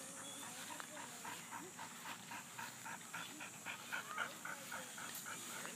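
Dog panting rapidly and steadily, about four to five breaths a second.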